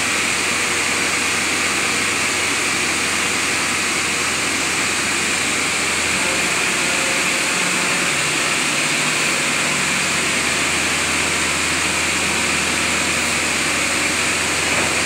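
Diesel engine of an amphibious excavator running steadily under working load as its boom and bucket are moved. The low hum changes about six seconds in.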